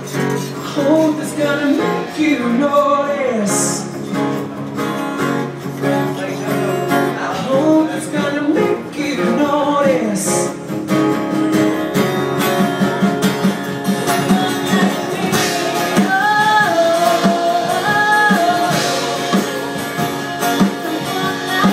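Music: a song with a singing voice and guitar over a steady beat.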